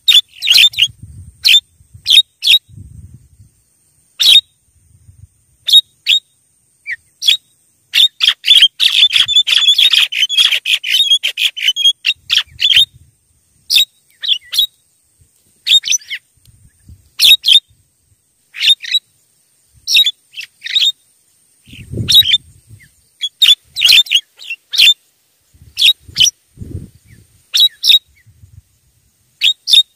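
Javan myna (jalak kebo) calling loudly: short, sharp, repeated notes at uneven intervals, with a run of rapid chattering from about eight to twelve seconds in.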